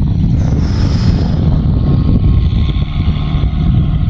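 Strong wind buffeting the microphone: a loud, uneven low rumble.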